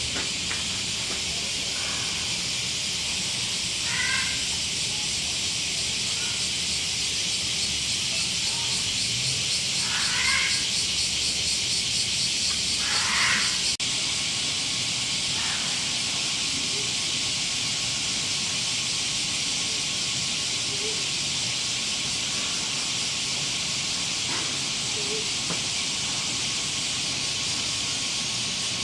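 Steady high-pitched hiss, with a few short faint sounds about four, ten and thirteen seconds in.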